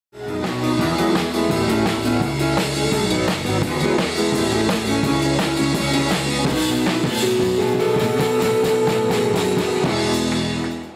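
Intro music with a steady drum beat and guitar, ending just before the railway sound begins.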